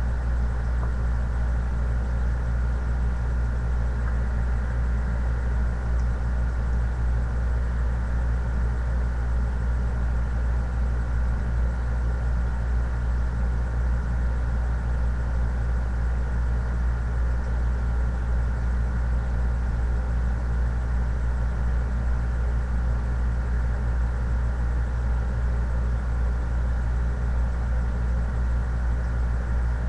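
A steady, unchanging low hum with a faint high tone above it, like a running motor or electrical hum.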